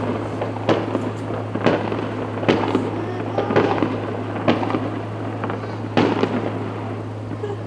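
Aerial fireworks bursting, a sharp bang roughly every second, over a steady low hum.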